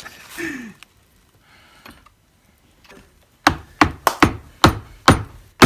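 A run of about eight sharp knocks in quick succession, like a part being tapped with a hammer or mallet, starting about halfway in.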